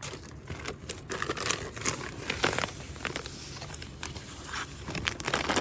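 Crinkling and rustling of a plastic bag and loose potting soil being handled, an irregular run of small crackles and scrapes.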